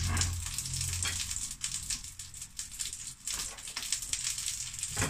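Duck breast frying skin-side down in a frying pan, sizzling with a steady crackle. A low hum fades out about a second in.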